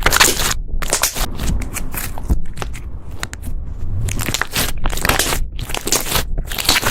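Slime being kneaded and stretched by hand, giving a continuous run of uneven crackly bursts with sharp clicks.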